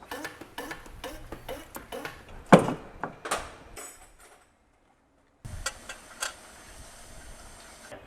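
Metal hand tools clinking and knocking against car parts, a string of short clicks with one louder knock about two and a half seconds in. The sound cuts out completely for about a second midway.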